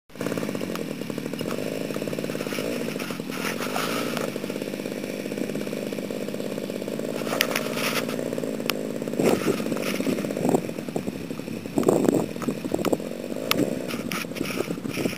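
Small model-airplane engine of a radio-control Stearman biplane running steadily with an even-pitched, chainsaw-like buzz. Several short thumps and bumps stand out over it in the second half.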